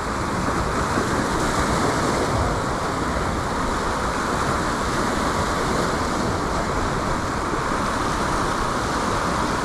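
Sea surf breaking and washing over shoreline rocks: a steady rushing noise.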